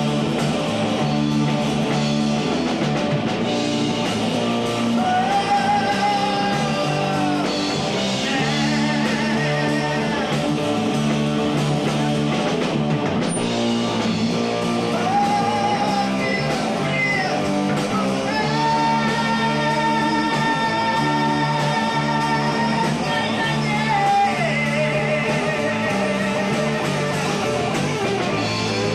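Live rock trio playing: electric guitar, bass guitar and drum kit, with a voice singing long held notes that bend up and down.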